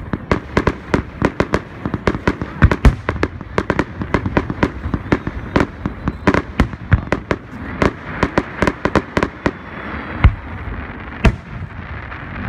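Aerial fireworks bursting: a rapid run of sharp cracks and bangs, several a second. After about eight seconds they thin out into a hiss, broken by a few single, louder bangs.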